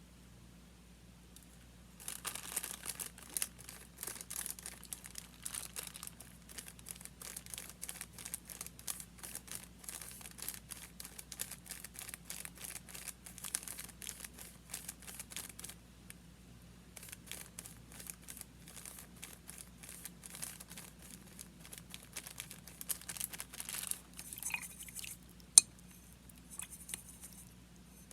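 Paper being handled close up, crinkling and rustling in dense runs of strokes with a short pause in the middle. Near the end there is a single sharp click, the loudest sound.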